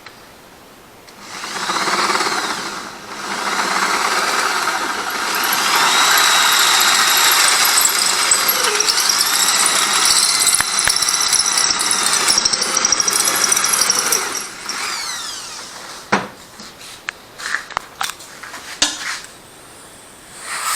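Power drill with an 8.3 mm bit drilling out a stripped bolt hole in a cylinder head, to enlarge it for a thread repair insert. Its speed rises and falls as it runs. It starts about a second in, dips briefly, runs for about twelve seconds and stops, followed by a few clicks and knocks.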